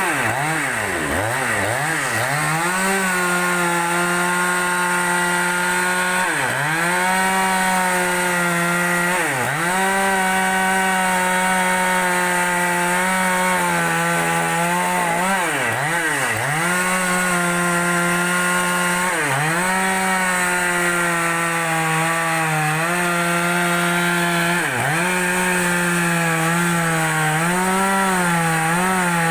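Two-stroke chainsaw running at high speed while ripping a large log lengthwise. The engine pitch repeatedly sags briefly under the cutting load and recovers, with several dips in quick succession at the start.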